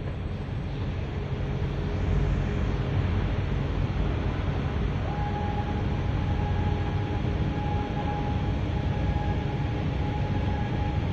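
Steady low rumble of the semi-submersible heavy transport vessel's machinery running close by as it leaves the quay, growing louder over the first couple of seconds. A steady high whine joins about five seconds in.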